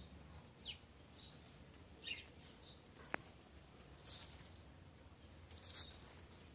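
Faint, short chirps of small birds, scattered every second or so, with a single sharp click about three seconds in.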